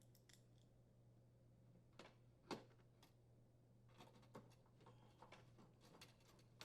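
Near silence with faint, scattered clicks and ticks from a screwdriver driving the mounting screws that secure a new oven door hinge. The clicks come a couple of times about two seconds in, then more closely spaced from about four seconds on, over a faint steady hum.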